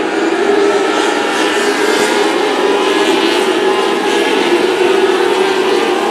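Engines of a pack of small open-wheel dirt-track race cars running together under power around the oval: a steady, dense, overlapping engine note with no letup.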